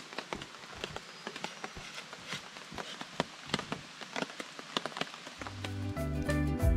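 Light rain dripping onto a tarp overhead, heard as scattered sharp taps of single drops on the fabric. Music comes in about five seconds in.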